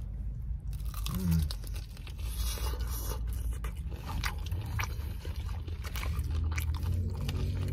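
Close-up biting and chewing of a breaded fried chicken wing, with many short crisp crunches and crackles from the fried coating.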